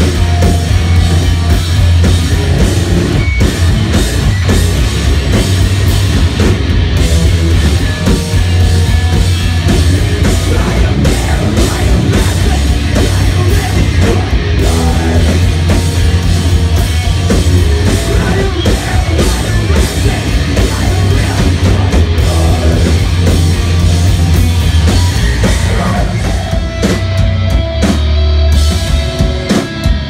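A live heavy rock band playing loudly on stage, with drum kit, guitars and some vocals.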